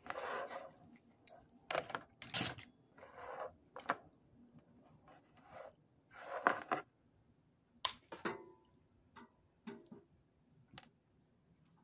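Irregular handling noises: a string of sharp clicks and short rustles, about a dozen scattered through, as the fan motor's lead wires are handled. The fan itself is not running.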